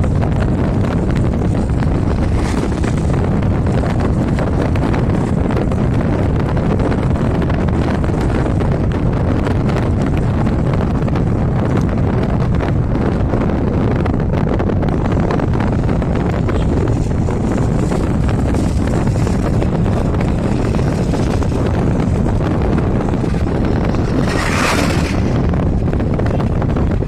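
Steady road rumble and wind noise of a moving car, heard from inside it, with a brief louder hiss about three seconds before the end.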